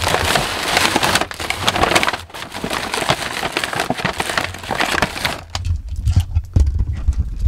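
Shopping bags rustling and crinkling as they are handled. About five and a half seconds in, the crinkling gives way to low, dull thumps.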